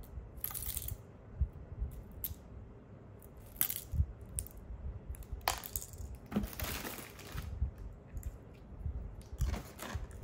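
Dry bran cereal flakes with oat clusters being crushed by hand and dropped into a ceramic bowl of yogurt: intermittent crisp crackles and rustles with a few sharp clicks, the longest crackling stretch about six to seven seconds in.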